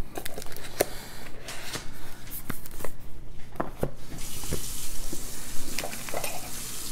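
Card-game boxes and cards handled on a wooden table: scattered light knocks and taps, then a steady rustling hiss from about four seconds in as a boxed card game is picked up and handled.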